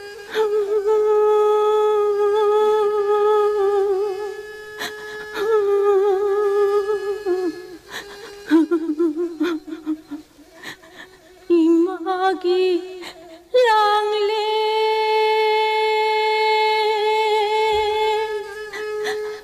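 A solo voice singing or humming a slow melodic passage of Manipuri wari storytelling, in long held notes with a wavering vibrato, phrase by phrase. The last and longest note is held from about two-thirds of the way through.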